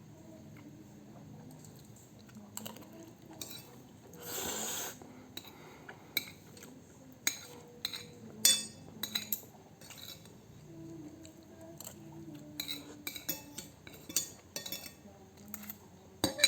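Cutlery clinking and tapping against a plate while eating, in scattered short clicks. There is a brief rushing noise about four seconds in.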